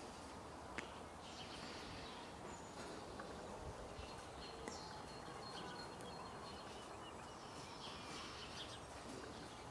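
Faint outdoor ambience: small birds chirping now and then over a steady low background noise, with a sharp click about a second in and another near the middle.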